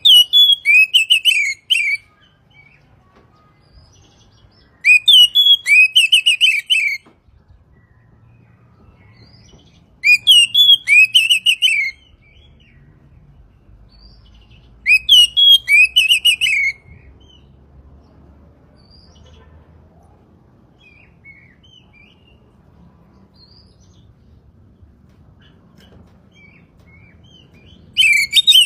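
Oriental magpie-robin singing: loud phrases of about two seconds, each a quick run of sweeping up-and-down notes, repeated about every five seconds. After the fourth phrase there is a long pause with only faint short calls before the song starts again near the end.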